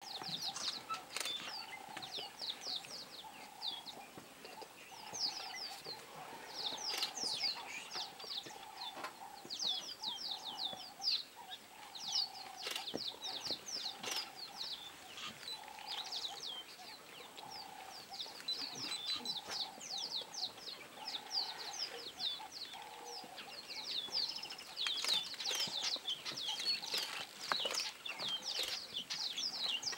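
Many small birds chirping continuously, a dense chatter of quick downward-sliding chirps, with a lower call repeating underneath and a few sharp clicks.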